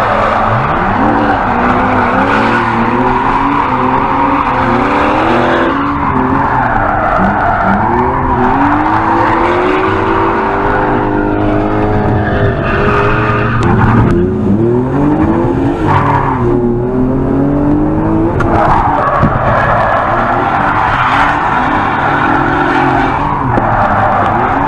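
Engine-swapped BMW E46 Compact drifting, heard from inside the cabin: the engine revs up and falls back over and over as it is held in the slide, with tyre squeal and skid noise from the sliding tyres.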